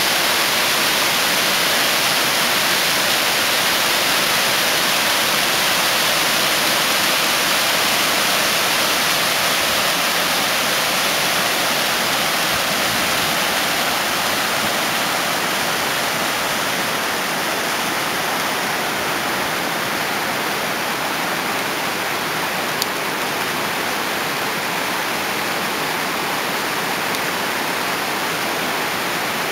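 Steady rush of a mountain stream cascading over rocks, an even hiss of falling and splashing water that grows a little softer in the second half.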